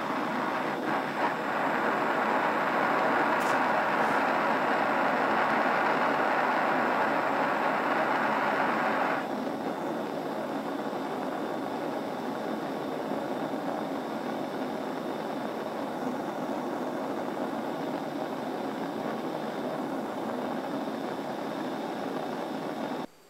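Gas torch flame hissing steadily while it heats a soldered joint. It is louder for the first nine seconds or so, then drops to a quieter hiss, and stops abruptly near the end.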